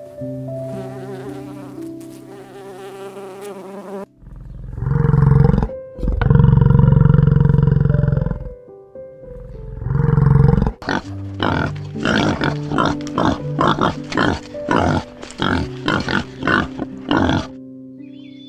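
A bison bellowing three times in long, deep calls, then a run of short grunts about two a second, over soft piano music. A bee buzzes at the start, before the bellows.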